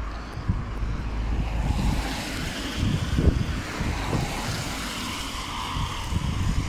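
Road traffic: cars driving past on the street, their tyre noise swelling a couple of seconds in, over a low rumble of wind on the microphone.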